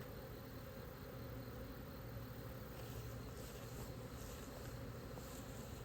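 Feral honey bee swarm buzzing: a faint, steady hum of many bees.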